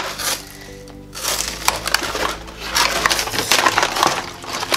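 Cardboard and plastic toy packaging being pulled and torn apart, a run of crinkling and crackling that pauses briefly near the start. Soft background music plays underneath.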